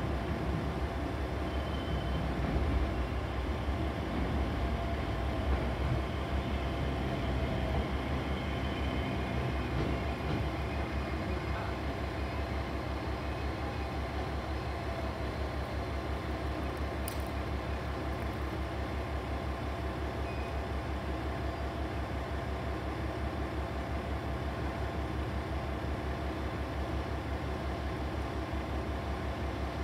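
KiHa 40 diesel railcar's engine idling steadily, a low rumble with rapid, even pulses.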